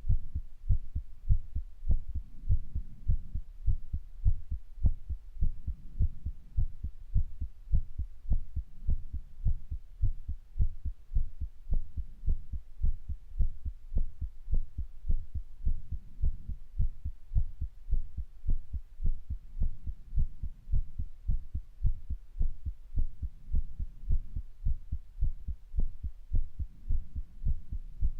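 Human heartbeat recorded up close: a steady run of quick, low thuds, raised by physical activity.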